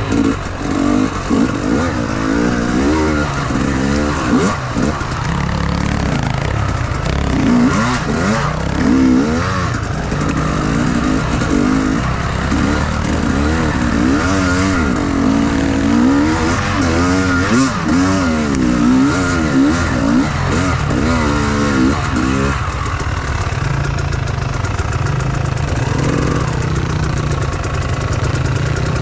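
Enduro motorcycle engine revved up and down over and over, its pitch swinging quickly. About 22 seconds in it settles to a steady idle.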